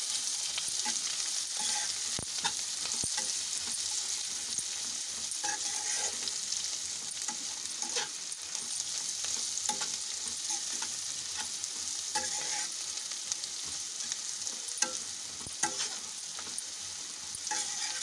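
Sliced spiny gourd (chathail) and onion sizzling steadily in oil in a non-stick frying pan. A spatula stirs them, with scattered scrapes and taps against the pan.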